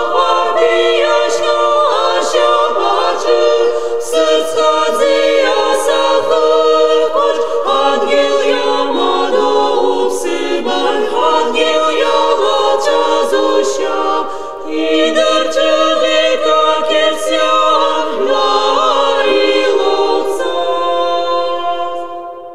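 A choir singing unaccompanied, several voices in harmony, fading out near the end.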